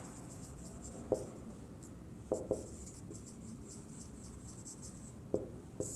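Faint scratching of handwriting strokes, with a few light taps scattered through.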